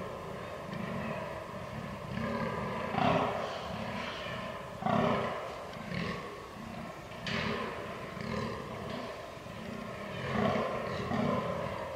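Fallow deer buck groaning during the rut: a run of deep, rough, repeated groans, loudest about three and five seconds in.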